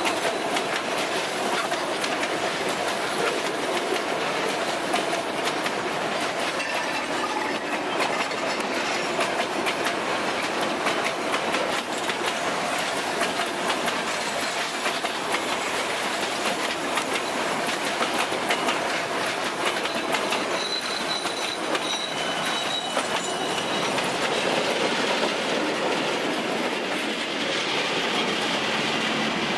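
Freight train of boxcars rolling past close by: a steady rumble and rattle with wheels clicking over the rail joints, and a thin high wheel squeal coming and going.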